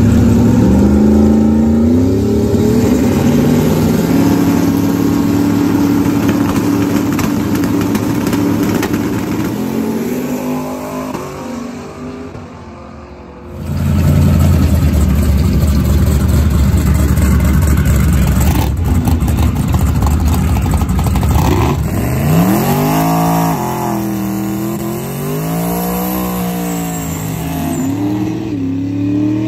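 Turbocharged LS V8 Chevy Colorado drag truck launching: the engine pitch climbs in steps, then holds and fades slowly as the truck runs away down the strip. After a sudden cut, the engine sits at a loud low rumble, then from about 22 s it is revved up and down repeatedly through a smoky burnout.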